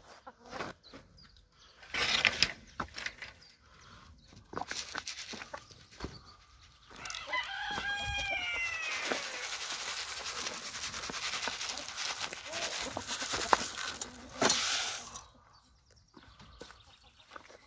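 A rooster crows once, about seven seconds in, a falling multi-part call, with hens clucking. Scattered knocks come in the first few seconds, and a steady rustling hiss runs from the crow until about fifteen seconds in.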